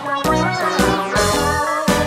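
Upbeat instrumental background music with a steady beat.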